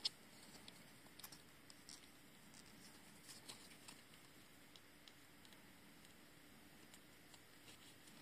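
Near silence, broken by one sharp click right at the start and a few faint ticks and rustles of a small piece of paper being handled by fingers.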